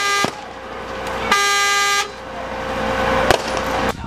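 Vehicle horn sounding in two blasts: one that cuts off just after the start and a shorter one about a second later. A single sharp crack follows near the end.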